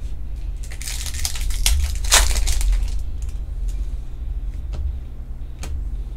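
Trading cards and plastic card sleeves handled by hand, giving crinkly rustling and light clicks, loudest about two seconds in. A steady low hum runs underneath.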